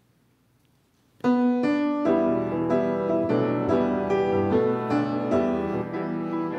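Piano music, a steady flow of single notes and chords, starting suddenly about a second in after a near-silent pause.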